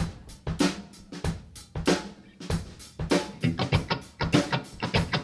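Live rock band's drum kit playing a beat, kick and snare hits a few times a second, the playing getting busier in the second half.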